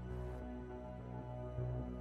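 Soft background music with sustained, steady tones.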